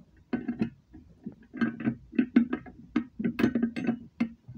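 Irregular metallic clicks and clanks, each with a brief ringing tone, from a manual fire alarm pull station's metal housing and key lock being handled as it is locked and reset.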